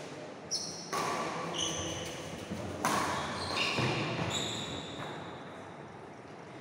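Badminton rally on a wooden court: a few sharp racket strikes on the shuttlecock, the loudest about three seconds in, between short high squeaks of shoes on the floor, one longer squeak near the middle, all echoing in a large hall.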